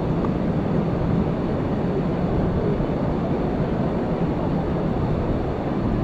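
Steady, even rush of fast-flowing river water over rapids at the head of a waterfall, heaviest in the low range.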